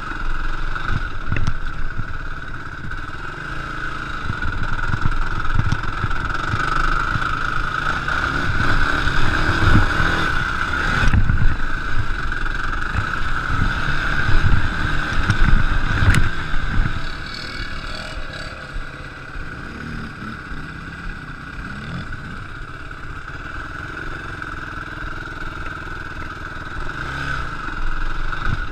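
Sport quad ATV engine running under way and revving up and down as it is ridden. It is louder through the middle, with a couple of sharp knocks, then eases to a lower run for several seconds before picking up again near the end.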